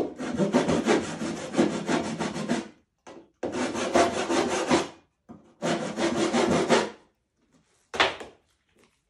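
Sandpaper on a hand sanding block rubbed quickly back and forth over a red-painted panel, in three spells of scrubbing strokes, each a second or two long. A short scrape follows near the end.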